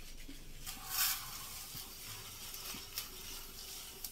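Sugar poured from a plastic bag into a steel bowl: a faint steady hiss of granules, with a brief rustle of the bag about a second in and a couple of light clicks.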